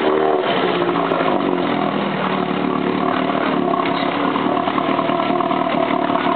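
8 hp Evinrude two-stroke outboard motor running; its speed shifts up and down in the first couple of seconds, then it settles into a steady run.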